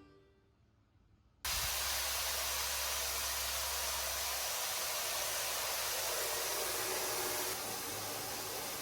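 A steady rushing hiss that starts abruptly after about a second of silence, with a low hum under it for its first few seconds; it eases slightly near the end.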